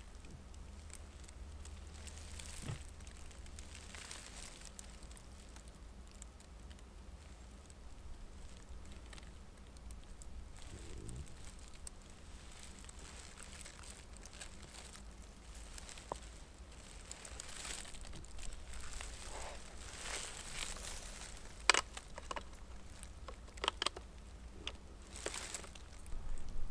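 Faint rustling and scattered light clicks over a low, steady rumble, with one sharp click about twenty-two seconds in.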